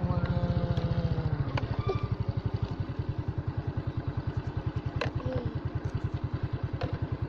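Motorcycle engine running with an even, fast putt-putt beat, easing off a little in the first couple of seconds, with a few sharp clicks.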